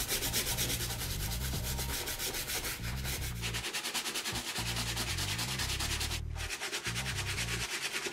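Stiff-bristled shoe-cleaning brush scrubbing wet, foamy leather on a sneaker upper in rapid back-and-forth strokes, a steady scratchy rubbing that breaks off briefly about six seconds in.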